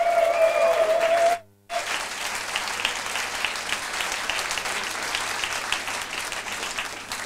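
Audience applauding the arrival of a presenter, with a long held voice-like tone over the first second or so. The sound drops out briefly about a second and a half in, then returns as steady clapping that slowly tapers off near the end.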